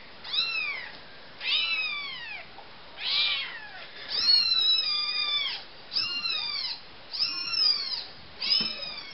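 Newborn kitten mewing over and over: about seven high, thin cries that rise and then fall in pitch, with a longer cry about four seconds in.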